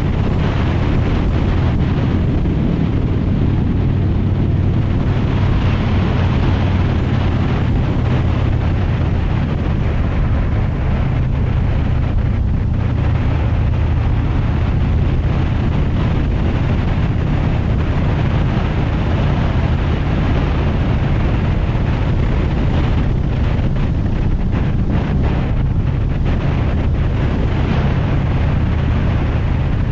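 Motorcycle engine running steadily at road speed under heavy wind noise on the microphone.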